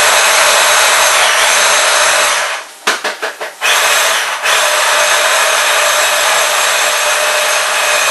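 Blender motor running loudly as it chops onions, stopping briefly about three seconds in for a few quick on-off pulses before running steadily again.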